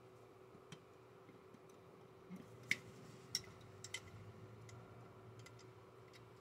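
A few faint, sharp clicks and taps of a plastic wing being handled and pressed onto a model sprint car's roll cage, the loudest about the middle, over a low steady hum.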